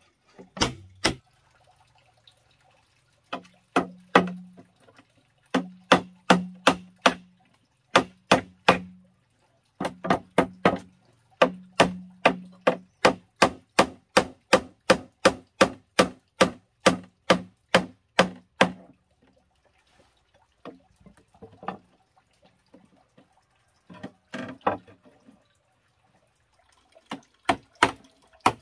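Claw hammer driving nails into wooden boards, in runs of sharp blows about two to three a second, with a pause of a few seconds late on before a few more blows near the end.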